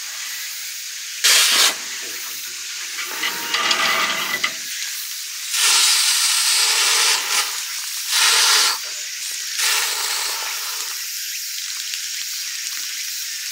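Water spraying from a garden hose, a hissing spray that comes in several louder bursts over a steady hiss.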